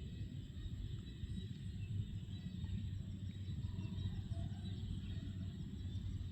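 Outdoor rural ambience: a steady low rumble with a faint, steady high whine above it.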